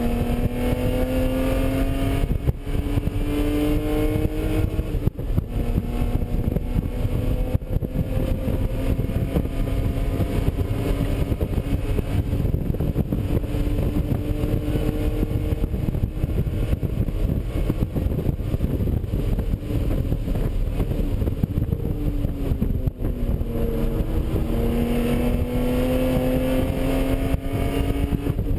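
BMW E36 M3's straight-six engine at full throttle on track, heard from inside the stripped cabin: the pitch climbs and drops back sharply at each upshift, falls as the car slows for a corner about three-quarters of the way in, then rises again as it accelerates out, over steady road and wind noise.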